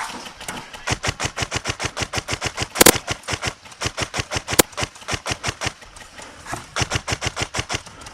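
Electric airsoft rifle firing full-auto: a long string of rapid, evenly spaced shots, a short pause, then another burst near the end. Two louder cracks stand out during the first string.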